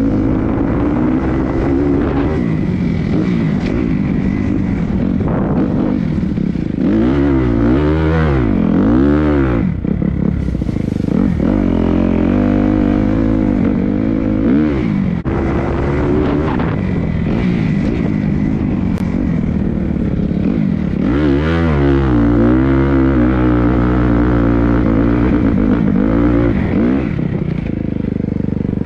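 Dirt bike engine heard from the rider's helmet, running hard and revving up and down as the bike rides over rough track. The pitch swings quickly up and down several times about a quarter of the way in and again about three quarters through.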